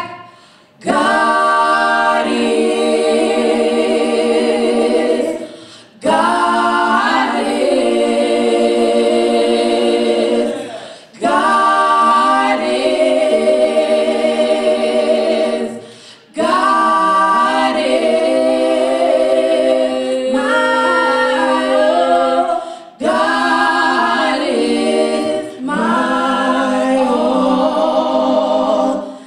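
Female gospel trio singing a cappella in three-part harmony (soprano, alto and tenor), in phrases of long held notes with a brief break between phrases about every five seconds.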